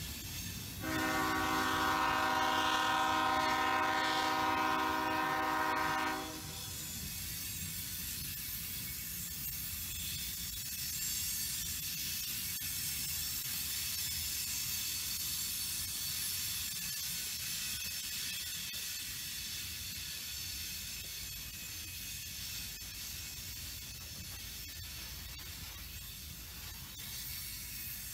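Freight train horn sounding one long chord-like blast from about a second in, lasting about five seconds, from a locomotive out of sight ahead. Under and after it comes the steady rolling noise of the train's covered hopper cars passing on the rails.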